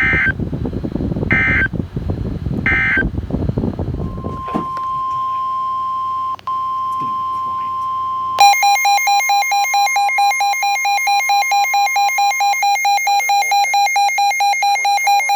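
Emergency Alert System signals from a NOAA Weather Radio broadcast. First come three short bursts of screechy SAME digital data tones, over static. Then the steady 1050 Hz weather-radio alert tone starts, and about eight seconds in a loud, fast-pulsing electronic alarm beep starts on top of it and keeps going.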